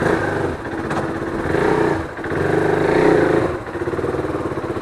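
Motorcycle engine revving up under acceleration, dipping briefly about two seconds in, then climbing again before settling to a steadier run.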